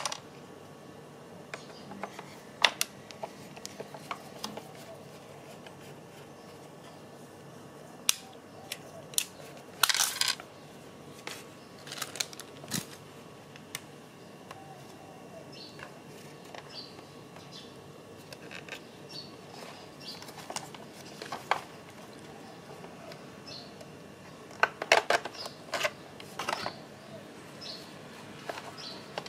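Scattered plastic clicks, taps and knocks as the shell and trim of a car's folding side-mirror housing are handled and worked with a screwdriver. There is a burst of clatter about ten seconds in and a longer run of clicks and snaps near the end.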